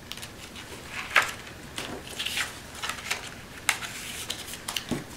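Paper and card being handled and set down on a cutting mat: soft rustles and scattered light taps and clicks, the sharpest about a second in.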